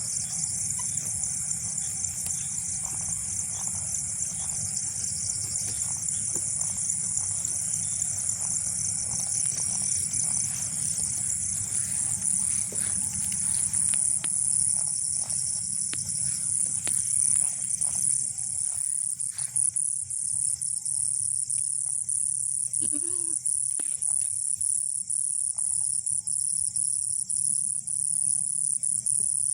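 Steady high-pitched chorus of insects, with a short wavering goat bleat about three-quarters of the way through.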